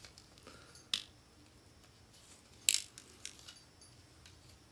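A few sharp, small clicks and clinks from handling a RAM stick and the Mac Pro's memory tray. A louder click comes about a second in, the loudest near the middle, then a couple of faint ticks.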